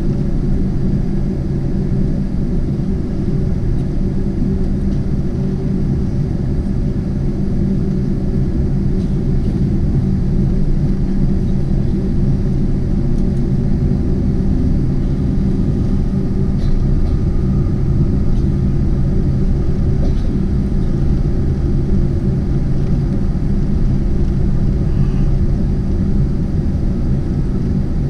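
Steady cabin rumble and engine hum of a Boeing 747-8 rolling on the ground, heard from inside the cabin.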